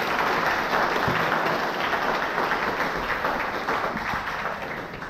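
Audience applauding, a dense patter of many hands clapping that gradually fades out toward the end.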